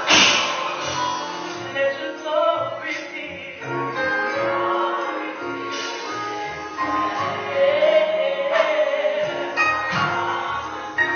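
A gospel choir singing with instrumental accompaniment, with a loud crash at the very start.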